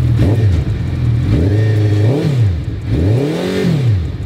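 Suzuki Hayabusa's 1340 cc engine, fitted with a Two Brothers exhaust, revved from idle in about three throttle blips. The note rises and falls each time, the last two blips longer than the first.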